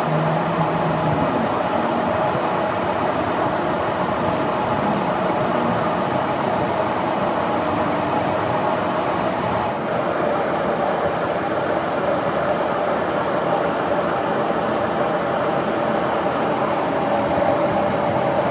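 Metal lathe running steadily, a continuous mechanical hum.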